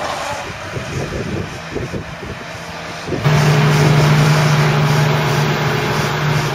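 Tractor diesel engines running on a silage clamp of chopped rye. A bit over three seconds in, the sound cuts to a louder, steady engine note.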